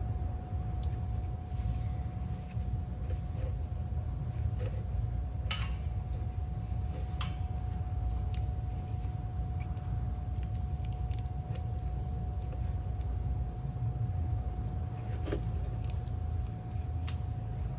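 Steady low rumble with a faint steady whine, broken by scattered small clicks and scrapes of hand work as a sharp knife cuts the soft inner rubber out of a driveshaft carrier bearing support. A few sharper clicks stand out.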